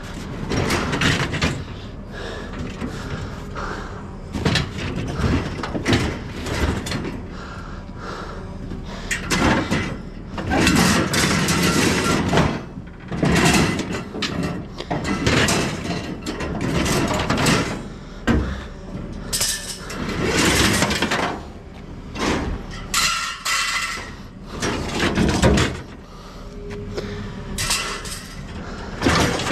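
Metal wire racks and scrap clattering and scraping as they are shoved around in a pickup truck bed: irregular clanks and rattles, heaviest about ten and twenty seconds in.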